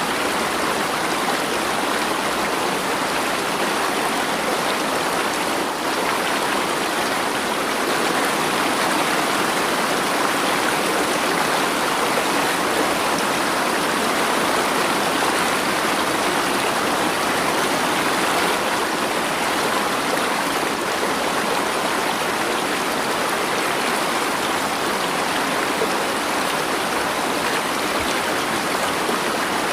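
Flowing water rushing steadily and evenly, with no drips, thunder or other events standing out.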